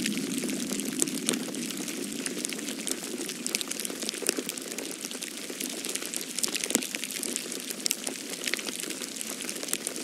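Falling wet snow pattering steadily on leaves and ground, a dense scatter of fine ticks much like light rain, over a low steady rush.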